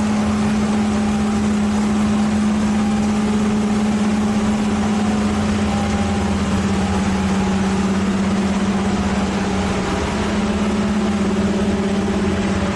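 A machine's engine running steadily with a strong, constant hum; it cuts off suddenly at the end.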